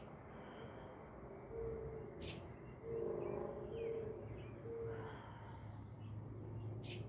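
A bird cooing: four short, low hoots in a row near the middle, with faint higher chirps from other birds. A sharp click about two seconds in.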